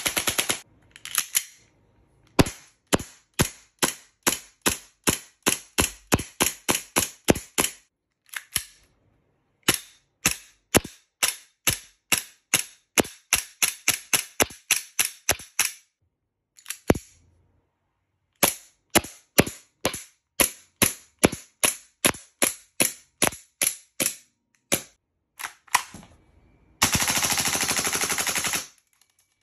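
Gas blowback airsoft guns firing, each shot a sharp gas crack with the clack of the cycling bolt or slide. A rapid full-auto burst ends just after the start, then come long strings of single semi-auto shots with short pauses, and a second full-auto burst of about a second and a half near the end.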